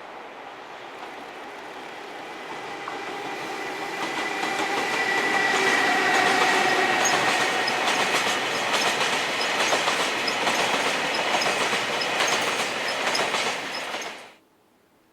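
EH200 electric locomotive hauling a train of oil tank wagons past, wheels clattering rhythmically over the rail joints under a steady whine that slides slightly lower in pitch. The sound grows louder as the train nears, then cuts off abruptly near the end.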